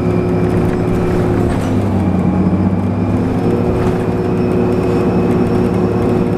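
Orion VII NG hybrid-electric city bus heard from inside while under way: a steady drivetrain hum with a thin high whine over it. The pitch of the hum shifts about two to three and a half seconds in as the bus changes speed.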